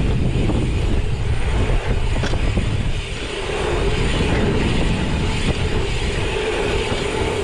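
Wind buffeting an action camera's microphone over the roll of knobby bike tyres on an asphalt pump track, a steady rumbling noise. A faint steady buzz joins about halfway in.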